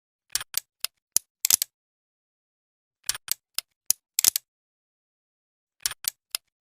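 Revolver mechanism clicking, as in cocking the hammer and turning the cylinder, without firing. The sharp metallic clicks come in three quick groups of four to six, a little under three seconds apart.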